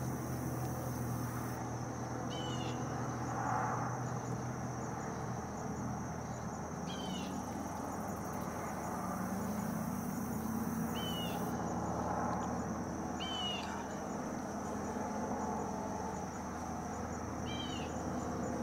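Evening insects droning in one steady high tone, with a bird giving a short, high call note every few seconds over a low background rumble.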